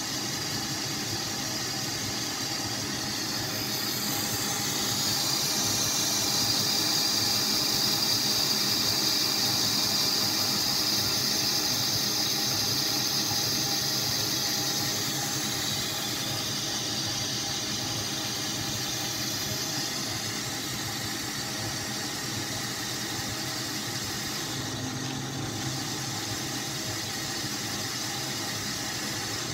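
South Bend 9A metal lathe running steadily, spinning a cast iron mandrel. A high-pitched squeal joins the steady machine noise about four seconds in, is strongest for the next ten seconds or so, then fades out around the middle.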